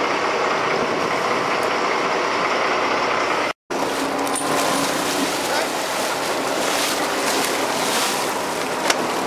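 Steady noise of a sport-fishing boat under way at sea: engine running with wind and water rushing past. The sound cuts out for an instant about three and a half seconds in.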